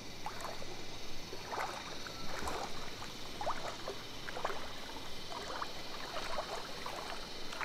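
Water sloshing and splashing as people move through a creek, with a steady background hiss and scattered faint short calls.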